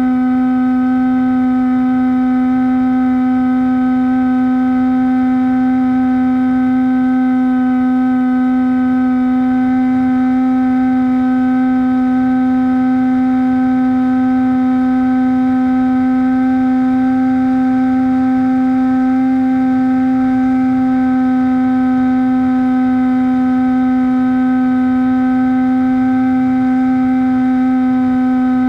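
Brushless outrunner motor (Turnigy D2826-6, 2200kV) on a Bixler V1.1 model plane, driving a 6x5-inch propeller at steady throttle in flight: a constant, unwavering drone over low wind rush.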